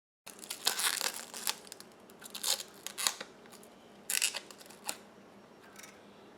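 Packaging being handled during a computer build: irregular bursts of crinkling and rustling, as of plastic and cardboard being opened, busiest in the first few seconds and thinning out near the end.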